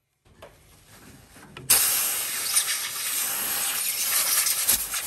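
A paper towel rubbing over the freshly knurled aluminium lathe workpiece makes a steady, hissing rasp. It starts faint and turns loud suddenly about one and a half seconds in.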